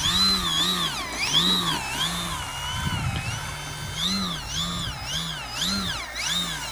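Electric brushless motor and propeller of a Flite Test Freedom Fox RC plane whining as the throttle is blipped up and down while it taxis. The pitch rises and falls over and over, more quickly in the second half.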